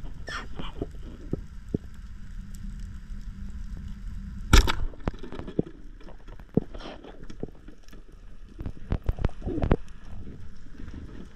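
Underwater, a band speargun fires with one sharp crack about halfway through, followed by scattered clicks and knocks, over a steady low underwater rumble.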